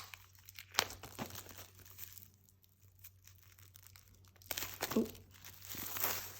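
Plastic shrink-wrap crinkling and tearing as it is peeled off a CD album: a few sharp crackles about a second in, then a longer run of crinkling in the second half.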